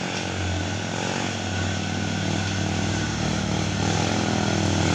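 Mitsubishi Fuso dump truck's diesel engine pulling slowly through deep mud ruts, a steady low drone that grows gradually louder as the truck comes closer.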